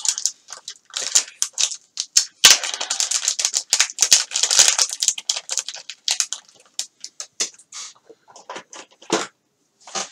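Small parts and their packaging being handled on a workbench: irregular crinkling, rustling and light clicks, with a sharp tap about two and a half seconds in and the busiest crinkling just after it.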